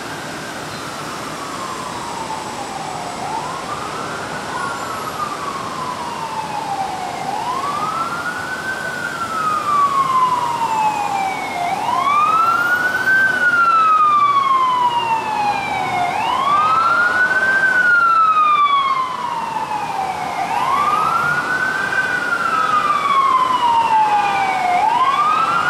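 Emergency vehicle siren in a slow wail. Each cycle rises quickly and falls slowly, repeating about every four seconds, and it grows louder about ten seconds in, over a steady hum of city traffic.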